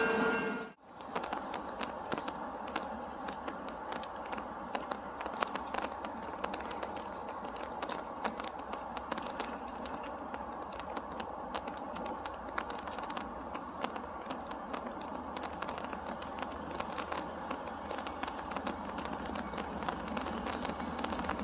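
Steady outdoor background noise with many scattered sharp clicks and crackles, after a brief dropout about a second in; the low rumble grows slightly near the end.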